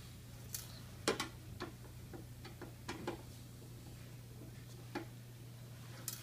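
Irregular small clicks and taps of a screwdriver and loose screws as countersunk screws are worked out of a metal panel, over a steady low hum.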